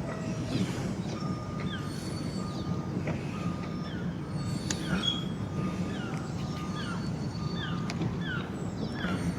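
Steady low outdoor rumble, with many short falling chirps from small birds and a few brief electronic beeps of the kind a reversing vehicle makes.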